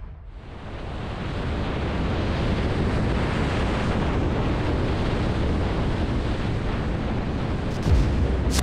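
Riva 68 Diable motor yacht running fast over the sea: a steady rush of wind and water spray that builds over the first couple of seconds and then holds, with a short thump near the end.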